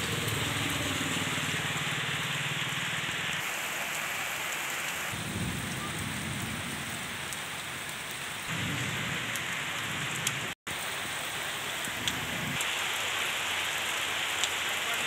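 Heavy rain pouring steadily onto wet bare ground and puddles, with several low rumbles coming and going. The sound briefly cuts out once, about ten and a half seconds in.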